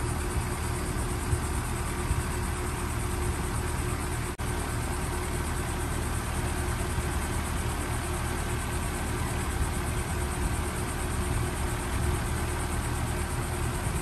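A 2021 two-ton Maratherm heat pump's outdoor unit running steadily in cooling mode. It makes a low compressor hum along with the rush of air from its top-mounted condenser fan.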